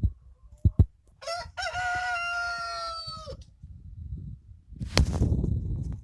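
A rooster crowing once, about a second in: a short note, then a long held note that falls away at the end, about two seconds in all. A couple of faint clicks come before it, and a sharp knock with a low rumble follows near the end, over a low rumbling background.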